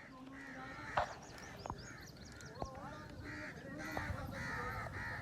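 Crows cawing over and over in short, harsh calls, with a few sharp knocks in between, the loudest about a second in.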